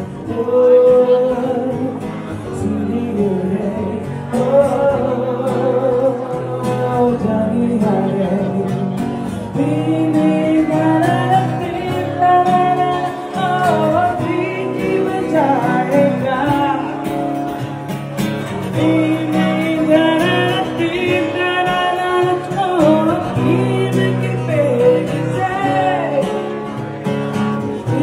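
Music: a song with a singing voice over instruments.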